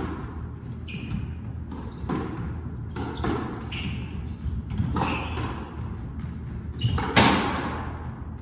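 Squash rally on an enclosed court: the ball is struck by racquets and smacks off the walls in a string of sharp hits at an irregular pace, with the loudest a little after seven seconds. Each hit echoes briefly in the hard-walled court.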